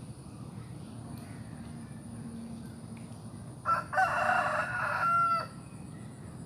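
A rooster crowing once, a loud call of just under two seconds starting a little over halfway through, over a steady low outdoor background hiss.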